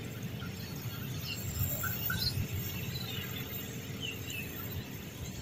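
Scattered short bird chirps, a few a second at times, over a steady low rumble.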